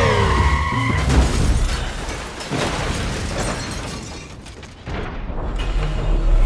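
Car crash sound effects under film score music: an SUV skidding and scraping on the road, then slamming into a lamp post with metal impacts and shattering. A deep low boom rumbles in the last second or two.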